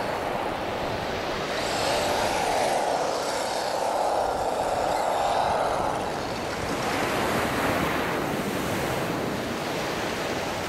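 Tamiya Monster Beetle radio-controlled truck driving on sand, its whine rising and falling in pitch with the throttle for the first six seconds or so, then fading under steady breaking surf and wind on the microphone.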